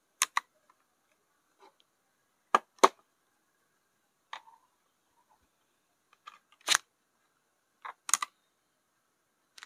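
Scattered sharp clicks and taps from desk items being handled, coming in small pairs and clusters a second or two apart, the loudest pair about two and a half seconds in.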